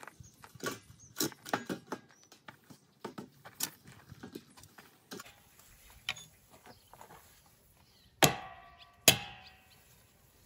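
Light knocks and scrapes while a wooden landing frame with a metal grating top is handled. Then two hard sledgehammer blows about a second apart knock a wooden post into place, each with a short ringing tail.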